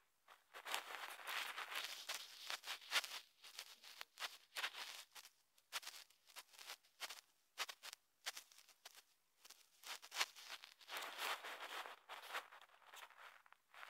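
Faint, irregular rustling and scratching: handling noise at the recording phone as it is touched and held during finger drawing.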